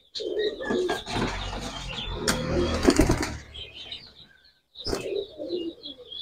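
Pigeon's wings flapping and rustling as it is caught and handled, with a few sharp knocks. Low pigeon coos follow near the end, and small birds chirp in the background.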